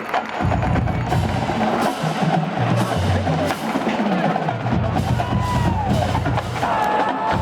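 Massed marching-band drumlines playing a percussion cadence: sharp snare and rim hits over deep low notes that come in about half a second in.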